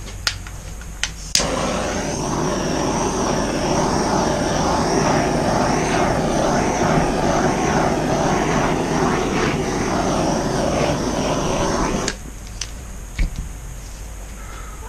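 Handheld torch: a few clicks, then it lights about one and a half seconds in and its flame hisses steadily for about ten seconds before it is shut off abruptly.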